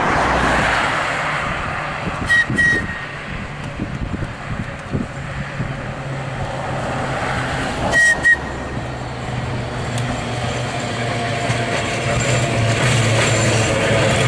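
Manx Electric Railway crossbench tram car 33 and its trailer approaching and passing close: a low rumble of motors and wheels that grows louder, with a higher whine joining in the last few seconds. Two quick double toots sound about two and eight seconds in.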